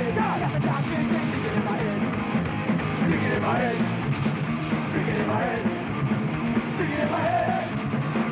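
Punk rock song with yelled vocals, loud and driving, cutting off sharply at the end.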